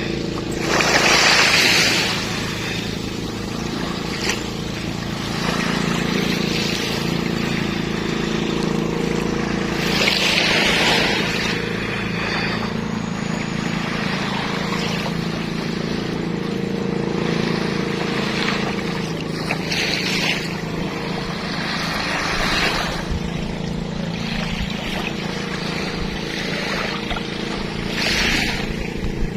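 Sea waves washing in, a swell of hiss every several seconds, over the steady low hum of a boat engine.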